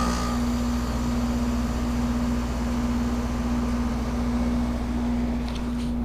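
2008 Goodman heat pump outdoor unit running with a steady hum, one held tone over a low drone, during its defrost cycle. A few faint clicks come near the end.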